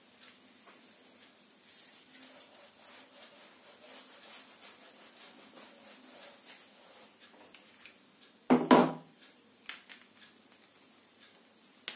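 Faint rubbing of a duster wiped across a whiteboard, with small scrapes and ticks. About two-thirds of the way through comes one short, much louder bump, followed by a few light clicks.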